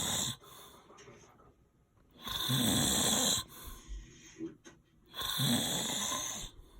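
A man snoring loudly up close, about one snore every three seconds: the end of one at the start, then two full snores, with quieter breathing between.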